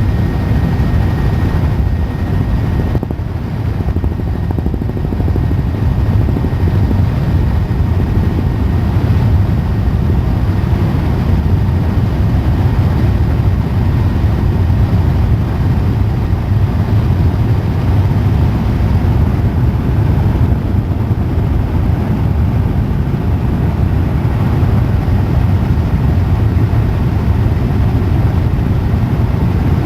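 Helicopter in flight: a loud, steady low drone of rotor and engine noise.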